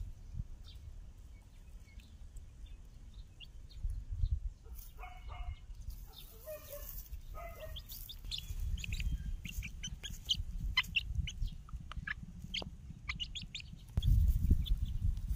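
A young chick peeping in short, high chirps, more often in the second half, with a few lower calls partway through. A low rumble runs underneath and grows loudest near the end.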